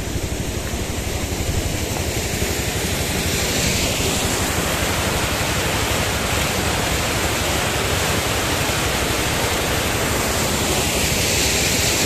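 Rushing water of a stream tumbling down a small rocky waterfall: a steady white-water rush that grows a little louder from about three seconds in.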